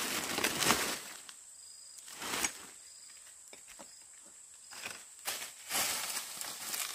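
A steady high insect buzz, with rustling noises that come and go: a longer stretch at the start, a short one about two and a half seconds in, and another near the end.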